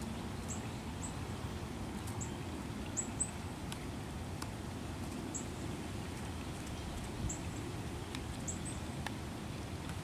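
Pileated woodpecker pecking at a dead tree trunk: a few scattered, irregular taps of its bill on the wood. A steady low rumble and short high chirps repeated every second or so run underneath.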